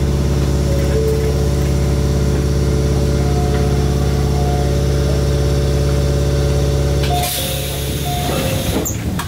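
A stopped Mizuma Railway 1000 series electric train humming steadily from its on-board equipment. About seven seconds in the hum stops and compressed air hisses out for about two seconds.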